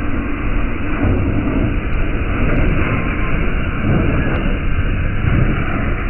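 Loud, steady rumble of a train passing close by.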